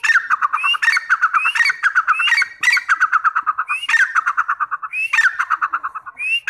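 Grey francolin (teetar) calling over and over, about once a second: each call a short rising high note followed by a fast, stuttering run of lower notes.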